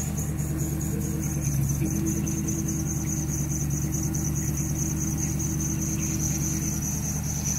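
Jeep Wrangler's engine running steadily, with a power-steering whine that the owner puts down to a thrown belt. A high, rapidly pulsing tone runs over it.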